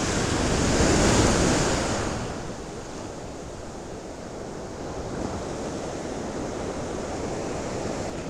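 Ocean surf on a beach: a wave swells to its loudest about a second in and washes out, followed by a steadier, quieter wash of surf.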